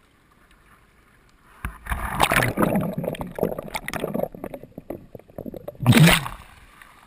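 Whitewater kayak capsizing, with the camera under the river surface. A thump comes about a second and a half in, then water churns and bubbles loudly around the camera for several seconds, with a second loud surge near the end.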